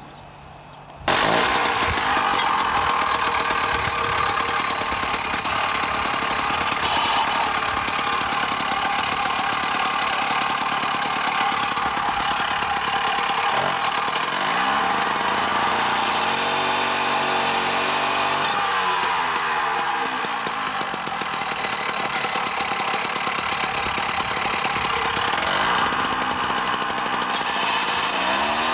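Petrol disc cutter (cut-off saw) running loud with its abrasive wheel cutting through a steel bar, starting suddenly about a second in. The engine note dips and climbs again midway and near the end.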